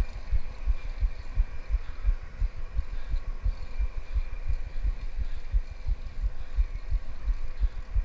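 Wind buffeting the microphone of a GoPro Hero 4 on a moving bicycle: a rapid, irregular run of low thumps and rumble.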